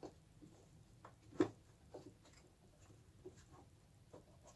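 Faint handling noises as fingers work a rubber grommet into a hole in a plastic fresh air box: scattered small clicks and rubs, with one sharper click about a second and a half in.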